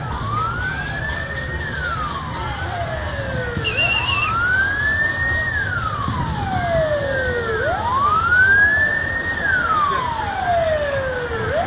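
Siren wailing, its pitch rising quickly and then falling slowly about once every four seconds, with a fainter second siren overlapping out of step. A brief high warble sounds about four seconds in.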